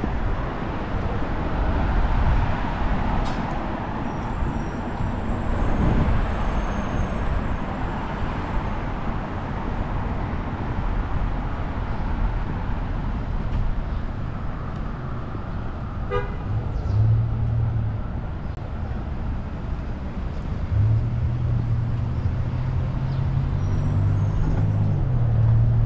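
City street traffic: a steady rumble of passing cars, a short horn toot about 16 seconds in, and a heavy vehicle's low engine drone from about 21 seconds in.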